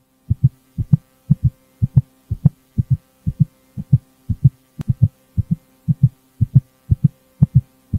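Low, heartbeat-like thumping at about four thumps a second, many in close pairs, over a steady low hum.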